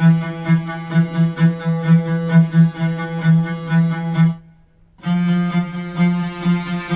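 Sampled bowed string instrument from a Kontakt virtual instrument library, holding one low, rich note with quick rhythmic bow strokes, several a second. It stops briefly about two thirds of the way through, then starts again on the same note.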